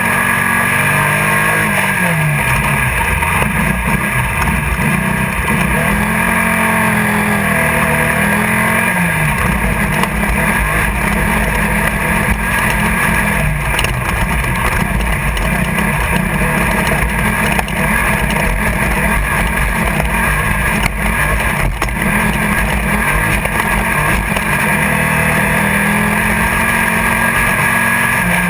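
Air-cooled Volkswagen 1600 cc engine of a Class 1600 desert race buggy heard from inside the car at race speed. Its pitch climbs and drops over and over as the driver shifts and lifts, over a constant loud rush of noise.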